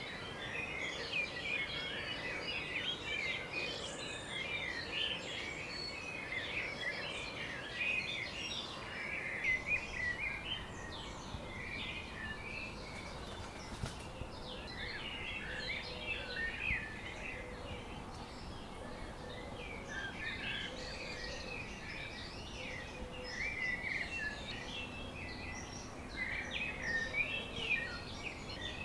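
Many small garden birds chirping and singing at once, a dense chorus of quick overlapping chirps that thins out for a while in the middle, over a steady low background rumble.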